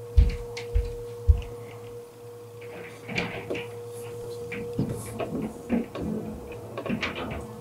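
Household thuds and knocks: three heavy low thuds in the first second and a half, then scattered knocks and clatter, the kind of neighbours' noise heard through a thin wall. A steady hum runs underneath and stops about five seconds in.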